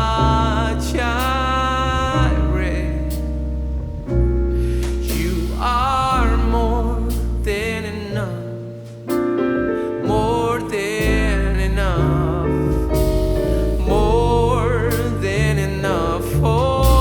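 Gospel-jazz band music: piano, double bass and drums under a wavering, vibrato-laden melody line. The level drops briefly about eight seconds in, then the full band comes back.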